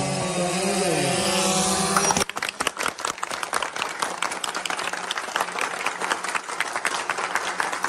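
A group of people cheering for a second or two, then, from about two seconds in, a crowd clapping steadily.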